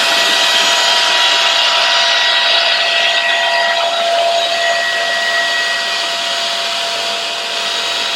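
Jashen V16 cordless stick vacuum running flat out with a steady motor whine and airflow hiss while sucking up flour from a hard floor. The pitch holds steady, with the whine thinning a little about halfway through.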